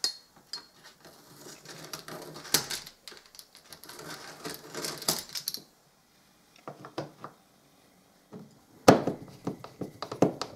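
A small hand deburring blade scraping and shaving moulding flashing off a hard plastic chainsaw bar guard: rough scrapes and clicks for the first few seconds. Then a few light knocks, and a quick run of sharp plastic clicks and taps near the end.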